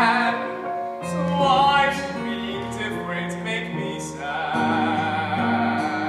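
A man singing a show tune with vibrato on held notes, over piano-led musical accompaniment.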